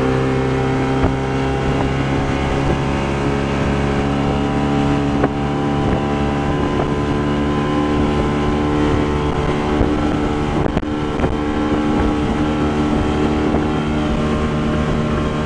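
1961 Mercury Merc 800 outboard, an inline six-cylinder two-stroke, running steadily at speed while the boat planes, with wind on the microphone. There are two brief knocks, about five and eleven seconds in.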